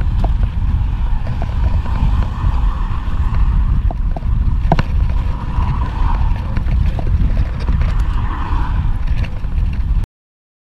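Wind buffeting the microphone of a handlebar camera on a moving road bike, with road noise underneath and a few sharp clicks, the loudest about five seconds in. The sound cuts out abruptly shortly before the end.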